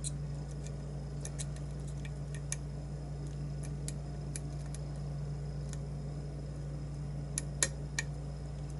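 Faint, sparse metallic clicks and ticks of a lock pick and tension wrench working the pins of a pin-tumbler challenge lock held in a vise. The clicks are scattered, with a small cluster near the end, over a steady low hum.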